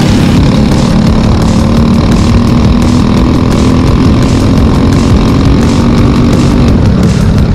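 Briggs & Stratton 206 single-cylinder four-stroke kart engine running loudly at a fairly steady pitch on track.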